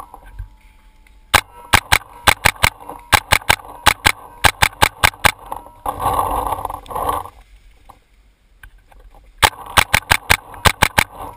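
Paintball marker firing rapid strings of sharp shots, about four a second, with a lull of a few seconds in the middle. A noisy burst lasting about a second comes roughly six seconds in.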